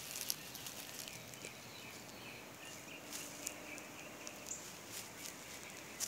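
Faint outdoor ambience: a distant, steady high chirring of wildlife with a few light clicks and rustles from footsteps in grass.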